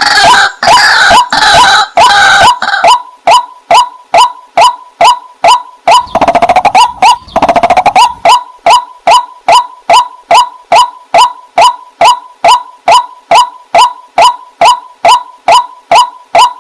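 Waterhen calling: a long, even series of short, clipped notes, about three a second. The first few notes are fuller and harsher, and about six seconds in there is a fast rattling run of notes.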